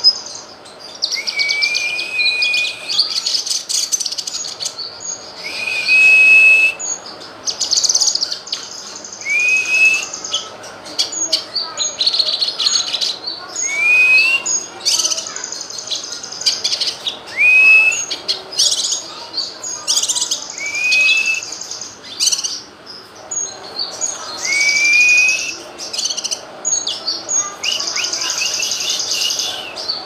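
Caged cucak kinoy (blue-masked leafbird) singing: a run of varied song phrases about every two seconds, each mixing rapid high chattering with a clear rising whistle, with sharp short chirps between.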